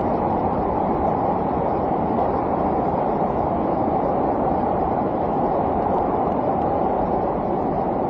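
Steady roar of rushing water, even and unbroken, heaviest in the low and middle range.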